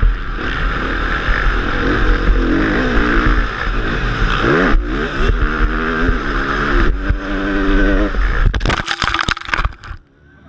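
Motocross bike engine revving up and down along the track, with a quick rising rev about halfway through. Near the end comes about a second of knocks and clattering as the bike crashes, and then the sound drops low.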